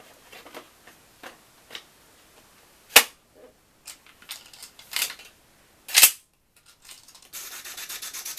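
Metal clicks and snaps of a magazine being taken out of and fitted into an airsoft M1928 Thompson replica, with sharp clicks about three and six seconds in. About seven seconds in, a rapid, even run of rasping clicks begins.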